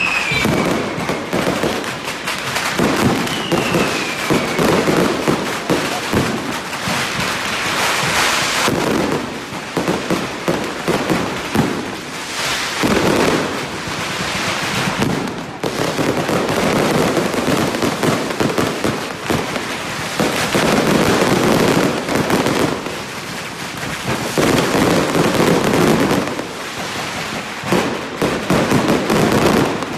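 Fireworks and strings of firecrackers going off in dense, continuous crackling that swells and eases every few seconds. A short falling whistle sounds twice in the first few seconds.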